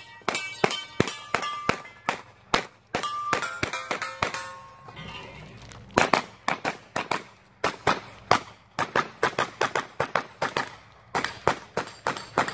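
Rapid strings of shots from a 9mm pistol-caliber carbine fired at steel targets, some hits followed by the plates ringing. A short lull about four seconds in, then fast shooting resumes at roughly four shots a second.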